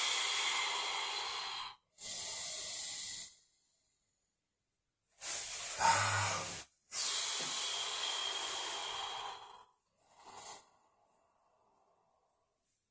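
A man breathing heavily through the effort of a held hip-mobility contraction: about five long, noisy breaths of one to three seconds each with short silent gaps between, one with a brief voiced grunt in the middle, then quiet for the last two seconds.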